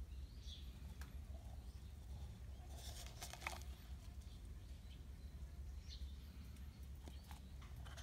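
Quiet outdoor ambience: a steady low rumble with faint, scattered bird chirps, and a brief rustle of a plastic cup being handled about three seconds in, with a few light clicks near the end.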